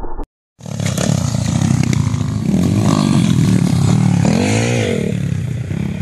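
Dirt bike engine revving on a motocross track, its pitch rising and falling in waves as the rider opens and closes the throttle. The sound comes in about half a second in, after a brief cut to silence.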